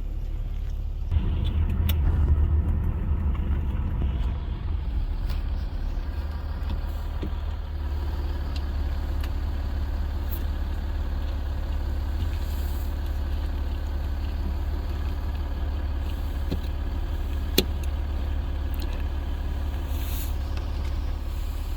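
Land Rover Discovery 4 driving, a steady low engine and road rumble that swells for a few seconds about a second in. A single sharp click comes near the end.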